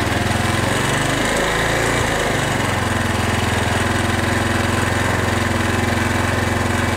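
Bashan 250 quad's four-stroke engine running just after starting on choke. The revs waver briefly about a second in, then settle into a steady idle.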